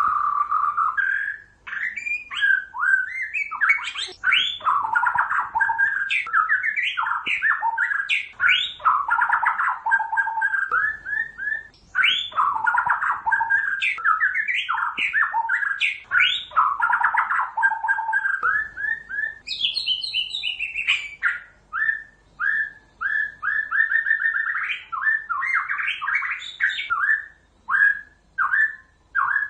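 White-rumped shama singing: a continuous run of fast, varied whistled phrases and rapid note series, with a higher-pitched passage about twenty seconds in and shorter, choppier phrases near the end.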